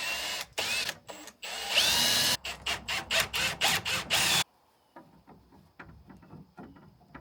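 Power drill running in short trigger bursts, its whine rising in pitch as it spins up, then cutting off abruptly a little over halfway through, followed by faint light clicks and knocks.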